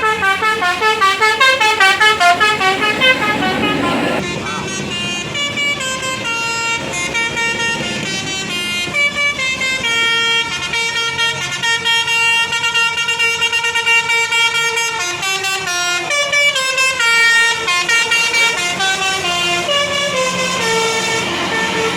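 Basuri telolet bus horn, a multi-trumpet musical air horn, playing a melody: a quick back-and-forth between notes for the first four seconds, then a longer tune of held notes stepping up and down.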